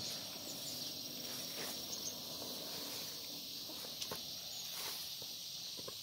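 Steady high-pitched chirring of crickets and other insects, with a few soft footsteps through grass and weeds.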